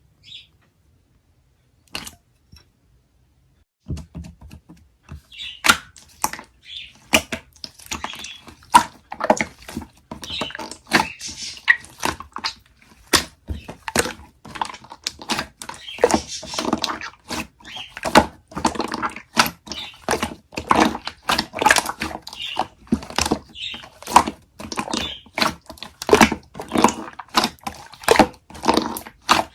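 Slime being squeezed and pressed by hand, making a dense run of irregular sharp clicks and crackly pops that starts about four seconds in.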